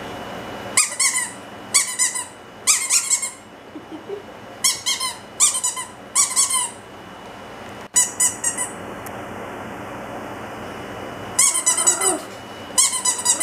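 A pink rubber squeaky dog toy squeaking over and over in short bursts, six in quick succession, then a pause of a few seconds, then two more near the end.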